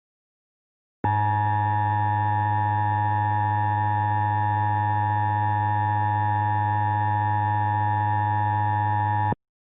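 Emergency Alert System two-tone attention signal (about 853 and 960 Hz sounded together): one steady, harsh tone starting about a second in, held for about eight seconds and then cut off abruptly. It marks the start of a broadcast warning, here a tornado warning.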